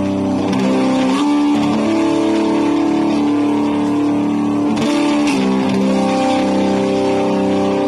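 Electric guitar played through a Marshall G15RCD amp, sustained chords and notes ringing and changing several times.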